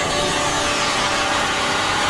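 Dense, steady wall of harsh noise from an experimental noise recording, rumbling in the low end with a hiss across the top and no breaks.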